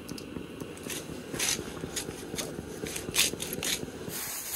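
A seasoning shaker shaken over a soup pot on a camp stove, giving a string of irregular sharp clicks and rattles, over a steady low rumble.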